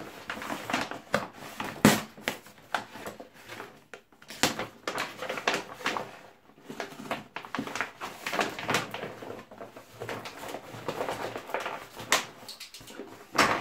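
Brown packing paper rustling and crinkling as it is pulled out of a cardboard box, in irregular crackles with a sharper, louder crackle about two seconds in.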